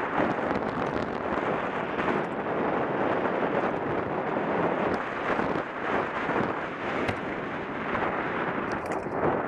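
Wind buffeting the camera's microphone on a fast downhill run, a loud, steady rush that swells and dips, with a few faint rattles.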